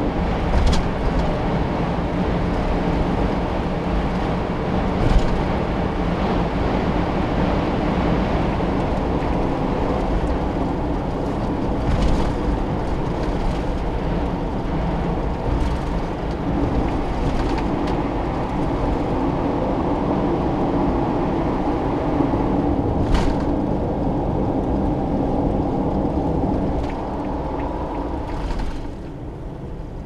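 Cabin road and engine noise of a Suzuki Every kei van cruising on an expressway, a steady rumble and tyre hiss with a few sharp ticks. It gets quieter near the end as the van slows down.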